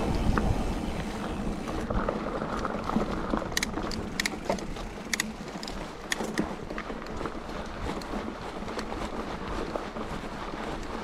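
Calibre Triple B mountain bike rolling over a dry dirt woodland singletrack: a steady rumble of knobby tyres on the dirt with the bike rattling, and scattered sharp clicks and ticks. The rumble is louder in the first two seconds, then settles.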